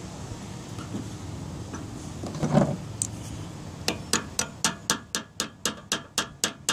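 Pliers used as a hammer, tapping steadily, about four light metallic taps a second from about four seconds in, driving the pushrod pin into a new clutch master cylinder. A single dull knock comes about halfway through.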